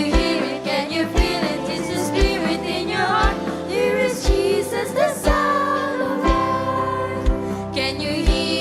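Children's choir singing a gospel song over an accompaniment, with a low drum beat about once a second.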